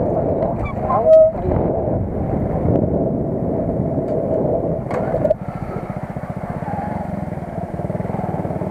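Motorcycle engine running while riding; about five seconds in the engine note drops and it settles into a quieter, evenly pulsing low run. A brief loud squeal sounds about a second in.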